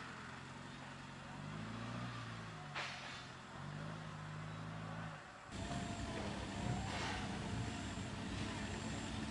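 Off-road 4x4 engine running, its pitch rising and falling as it is revved and eased off. About five and a half seconds in the sound changes abruptly to a rougher, louder engine noise with a faint high whine.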